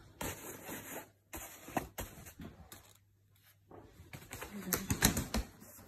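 Fabric rustling and light clicks and taps from the Kinderkraft Moov pushchair's seat unit and frame as it is handled, with a denser run of knocks and rustling near the end.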